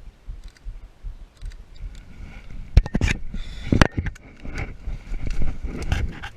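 Someone walking through woodland undergrowth: uneven footfalls and rustling, with two sharp snaps about three and four seconds in.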